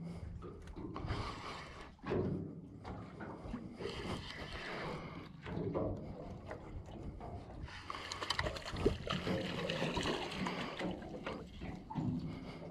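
Water slapping and knocking against the hull of a small aluminium boat drifting with its engine off, with a spinning reel being wound in. The knocking is irregular, busiest about two-thirds of the way through.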